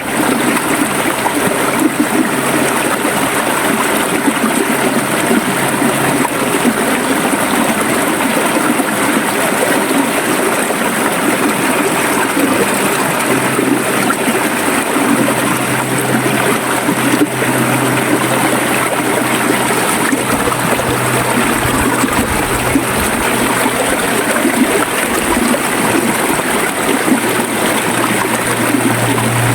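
River water flowing and gurgling steadily. A low steady hum underneath grows stronger about halfway through.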